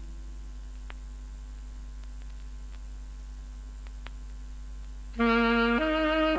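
Background music. A faint held low note sits over a steady hum with a few faint clicks. About five seconds in, a loud wind-instrument melody enters with long held notes that step upward in pitch.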